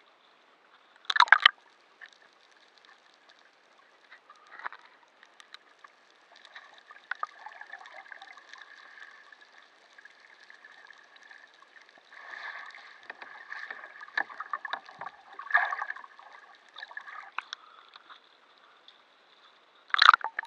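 Water sloshing and gurgling around a half-submerged camera, with short loud splashes about a second in and again near the end.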